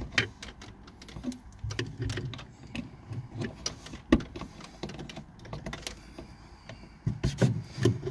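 Irregular plastic clicks and taps with cable rustle as a dash cam's power cable is handled and pushed into place at its windscreen mount, with one sharper click about four seconds in and a busier run of clicks near the end.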